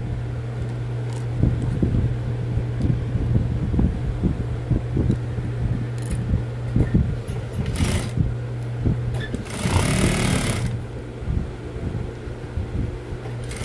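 Industrial flatbed sewing machine stitching a folded fabric bag handle: a steady motor hum under a fast run of needle strokes. A short burst of rustling noise comes about eight seconds in and again around ten seconds.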